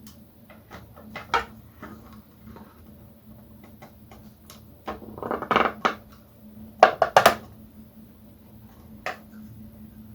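Small plastic clicks and knocks as a PVC figure is handled and fitted onto its plastic display base, with a stretch of plastic scraping a little past the middle and the loudest knocks about seven seconds in. A faint steady hum runs underneath.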